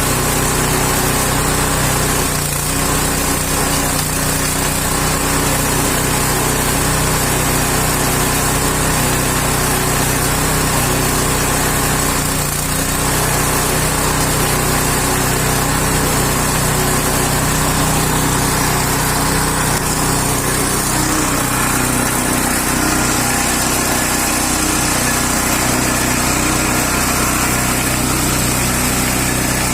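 Small engine driving a coconut dehusking machine, running steadily.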